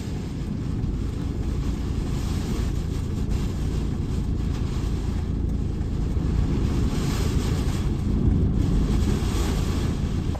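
Typhoon-force wind buffeting the microphone: a loud, steady, low rumble.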